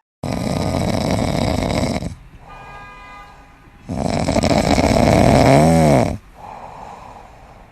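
Loud snoring in long breaths about four seconds apart, each snore lasting about two seconds, with quieter breaths between. The second snore carries a brief wavering squeak.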